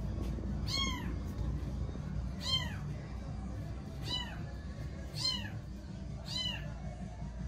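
Kitten meowing five times, one high call every one to two seconds, each rising and then falling in pitch.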